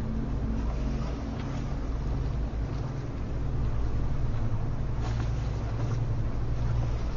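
Low, steady drone of a ship's engine running, swelling and easing slowly, over a faint hiss.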